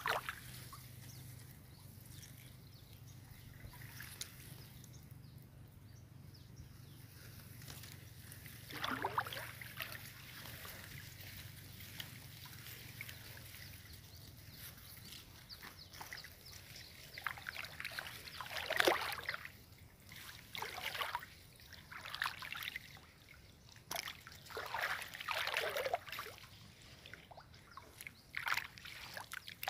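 Irregular splashing and sloshing in shallow paddy water, with rustling through wet grass, growing more frequent in the second half.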